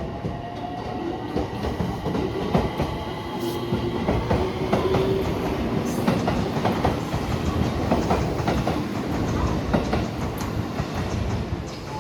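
Train running along the track at the station, its wheels clattering over rail joints and points in a dense run of knocks over a low rumble.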